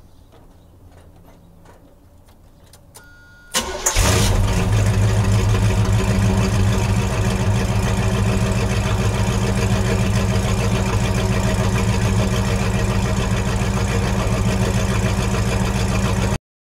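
1979 Camaro's crate 350 small-block Chevy V8 cold-starting: a brief crank about three and a half seconds in, then the engine catches and idles steadily and loudly through headers and a true dual exhaust with what the owner believes are Flowmaster mufflers. The sound cuts off just before the end.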